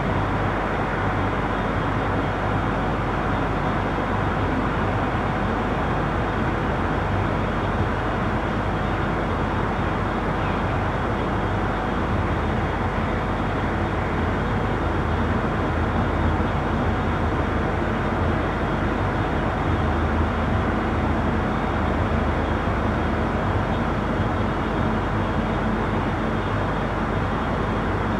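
Steady rumble of city street traffic at night, a continuous wash of engine and tyre noise with no single vehicle standing out, heard from a window.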